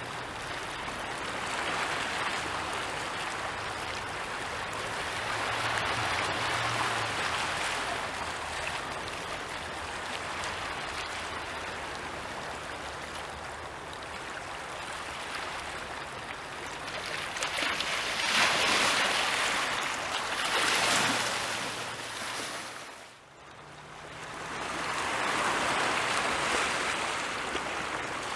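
Sea waves washing onto the shore, the rush of water swelling and ebbing every few seconds.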